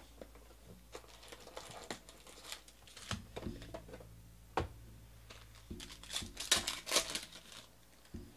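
A plastic trading-card pack wrapper crinkling as it is torn open and unwrapped by hand, with light taps and clicks of cards being handled. The crinkling is heaviest about six to seven seconds in.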